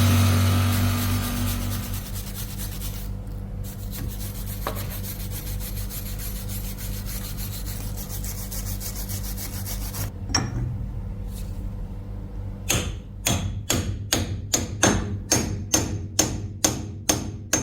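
A power tool's motor spins down, then a steady scraping rub goes on for several seconds. About two-thirds of the way in, a hammer starts striking metal in a regular rhythm of about two blows a second, each with a short metallic ring.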